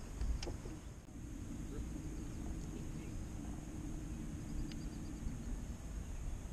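A motor's low, steady drone that starts about a second in and fades out near the end, over a low rumble, with a single click about half a second in.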